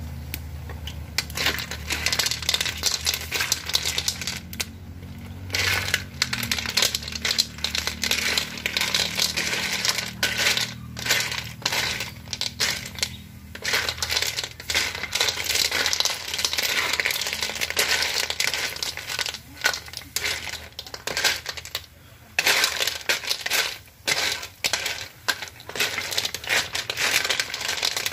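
Telescope snail shells clattering against a metal wok and each other as they are stirred in hot liquid, with sizzling. It is a dense, irregular run of clicks and chinks that stops briefly a few times.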